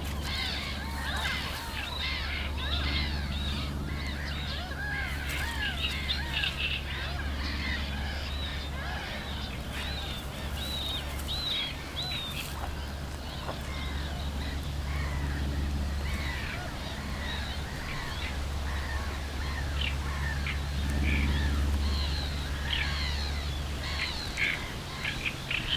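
Many birds chirping and calling over one another in a dense, continuous chorus of short, quick notes. A low steady rumble runs underneath.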